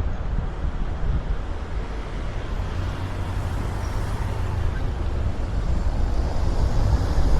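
Low, fluctuating wind rumble on the Insta360 X4 camera's microphone under its wind protection, over road traffic noise that grows louder near the end.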